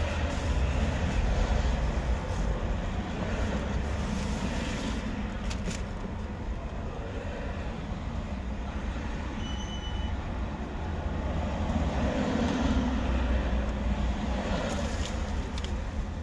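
Street traffic: a steady low rumble of passing vehicles that swells about a second in and again about three-quarters of the way through.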